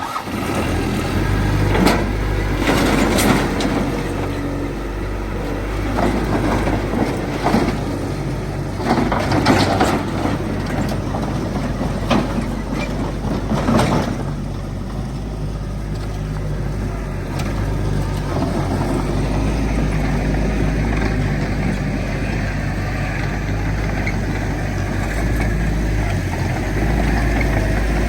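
Heavy diesel earthmoving machinery working: a steady deep engine drone with a series of sharp metallic clanks and knocks over the first half, then steadier running.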